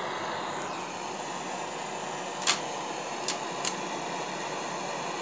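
Homemade brass case annealer running with a steady whir, and three light metallic clinks about halfway through as annealed 7.7 Japanese brass cases drop into the metal catch tray.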